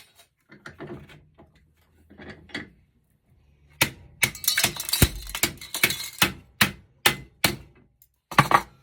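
A hammer striking copper-and-aluminum computer heat sinks to break the cast aluminum away from the copper. Light knocking and handling comes first, then about four seconds in a quick run of sharp blows begins, about two a second.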